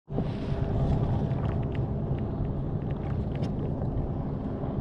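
Motorboat engine running steadily as the boat passes, a low drone with a few faint light ticks over it.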